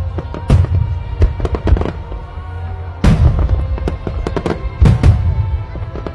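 Fireworks going off in repeated sharp bangs and crackles, with two big booms about three and five seconds in, over background music.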